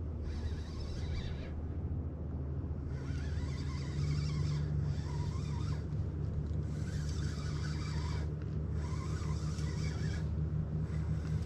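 Boat engine running steadily at idle, a little louder from about four seconds in, with faint intermittent squeaks over it.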